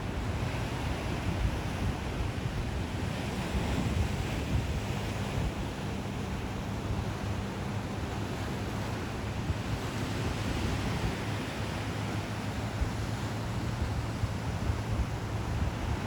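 Ocean surf washing in steadily, with gentle swells as waves break, and a low wind rumble on the microphone underneath.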